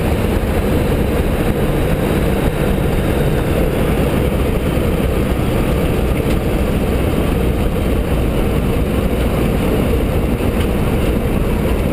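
Boeing Stearman biplane's radial engine running steadily at low power, with wind noise in the open cockpit, during the landing roll on a grass runway.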